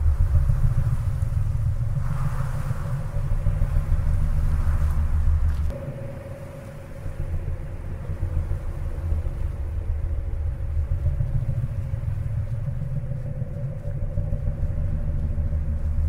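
Low, gusting rumble of wind buffeting a handheld camera's microphone while it is carried along, easing briefly about six seconds in, with a faint steady tone underneath.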